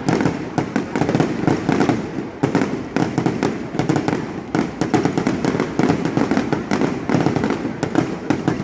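Fireworks going off continuously: a dense, irregular run of sharp bangs and pops, several a second, over a steady rumbling din.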